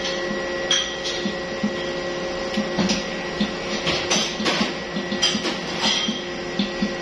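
Commercial stand mixer running with its dough hook turning flour into bread dough: a steady motor hum with a rhythmic knocking a few times a second and occasional clicks.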